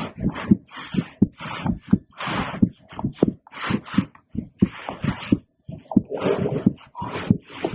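A woman's heartbeat heard through a stethoscope: a run of short, low thumps, two or three a second, with rustling hiss from the chest piece mixed in.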